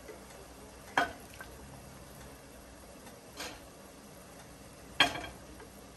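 Three short clicks of a wooden spatula and a pot knocking as boiled beef is served onto a plate, spaced a couple of seconds apart, the last the loudest.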